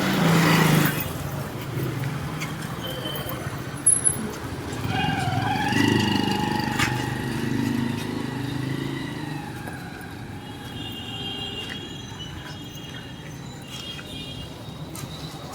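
Road traffic passing, with a held tone with overtones for a few seconds near the middle.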